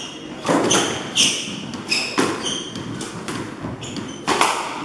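Squash rally: a series of sharp ball strikes, racket hits and the ball smacking the walls, echoing in the court. Short high squeaks of the players' shoes on the wooden floor come between them.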